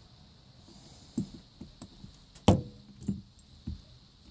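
A handful of light knocks and clicks as small metal lock parts are handled and set down on a workbench, the loudest about halfway through.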